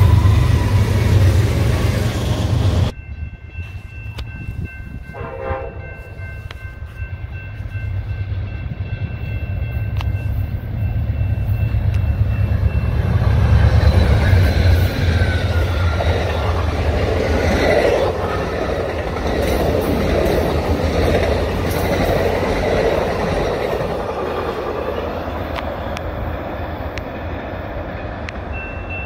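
A freight train's heavy rumble cuts off sharply about three seconds in. Steady horn tones follow, then an Amtrak passenger train led by a GE Genesis diesel locomotive passes close by, its engine and wheels on the rails building to a peak and slowly fading as it runs away.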